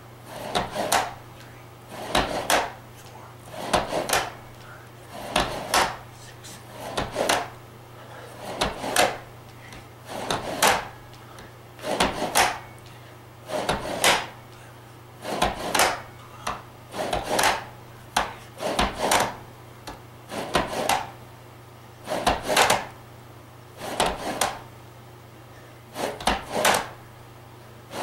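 The sliding handles of a Ron Williams Iron Chest Master push-up rail run out along the aluminium track and back together with each fly push-up. This gives a rubbing, clacking slide about every one and a half seconds, steady all through.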